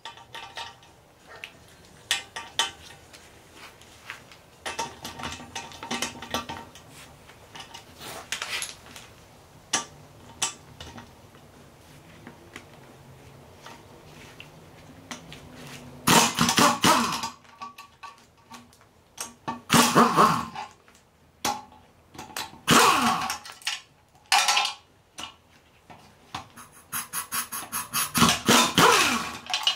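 Pneumatic impact wrench hammering on a strut's top nut in about five short bursts in the second half, its pitch rising and falling, while the top mount is being removed. Before that, lighter metallic clicks and rattles of the sockets and wrench being handled.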